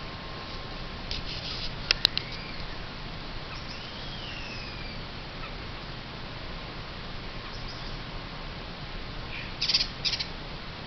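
Birds calling: short chirps, a soft whistle that rises then falls, and two louder bursts of chirps near the end, with a few sharp clicks about two seconds in.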